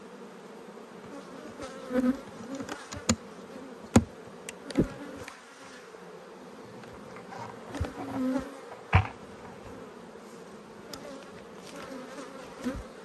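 Honeybees buzzing steadily around an open beehive, with a few short sharp knocks and clicks, the loudest about four and nine seconds in.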